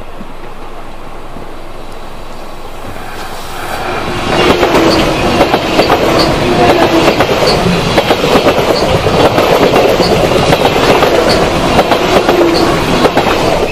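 Swiss electric passenger train coming out of the tunnel and passing close by: a rush of wheels on rails that swells over a few seconds, then a loud, steady clatter of wheelsets over the rails as the carriages go past.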